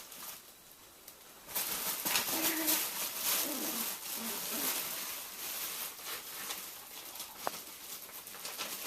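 Podengo puppies scuffling, scratching and rustling about their pen, starting about one and a half seconds in, with a few soft low grunts from the pups between about two and five seconds in.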